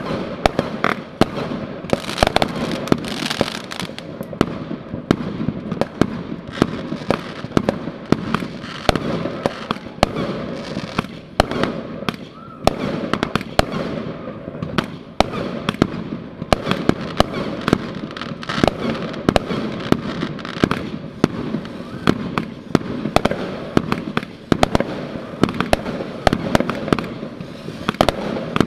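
Fireworks launching and bursting overhead: a dense, unbroken string of sharp bangs and pops, several a second, over a continuous crackling wash.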